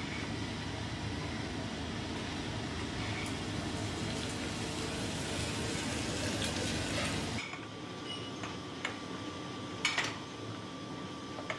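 Steady rushing noise of a silver-melting furnace running while molten silver is poured from the crucible into an ingot mould. About seven seconds in it cuts off, giving way to the quieter hum of a rolling mill with a few sharp metallic clanks.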